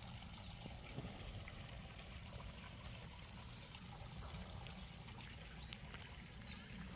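Faint, steady trickle of running water from a small stream.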